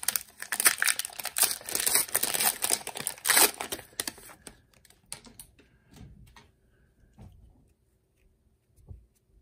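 Cellophane wrapper of a trading-card pack crinkling and tearing open, with dense crackling for the first four seconds or so. After that come fainter scattered clicks as the stack of cards is handled.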